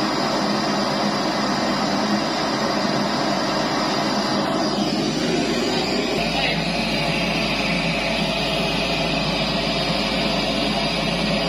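Pink-noise test signal played loud and steady through large PA speaker boxes, the hiss-like signal used to measure and tune a sound system's response. About six seconds in its balance shifts, the deepest bass getting stronger.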